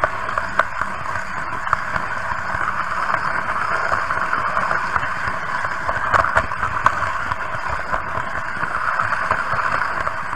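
Märklin H0 model train running along the layout's track: a steady whirr from the motor and wheels, with frequent small clicks from the wheels and pickup on the rails.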